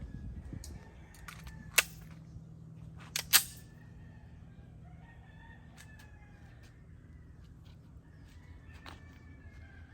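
A rooster crowing in the background, drawn-out faint calls in the second half. A sharp click about two seconds in and two more just after three seconds are louder than the crowing.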